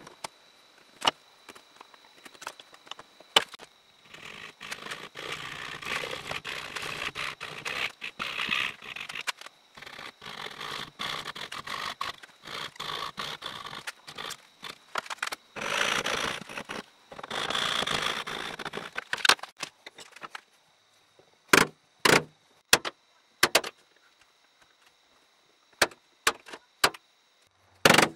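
Hand coping saw cutting notches into a small wooden block held in a vise, a rasping back-and-forth with a few short pauses. In the last several seconds come sharp, separate knocks of a chisel being struck to chop the waste out between the saw cuts.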